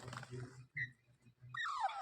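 Pet green parrot calling: a short chirp near the middle, then a harsh downward-sliding call starting in the last half second, after a brief noisy rasp at the start.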